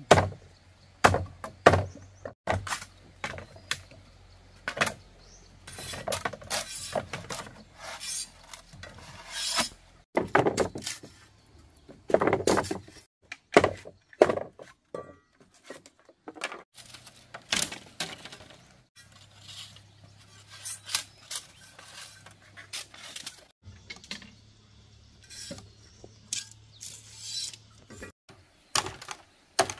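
Machete blade chopping and splitting green bamboo on a wooden plank: irregular sharp knocks, mixed with stretches of the blade scraping along the bamboo.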